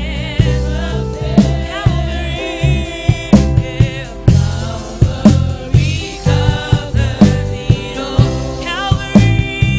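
Gospel praise music: voices singing over a band with a drum kit keeping a steady beat.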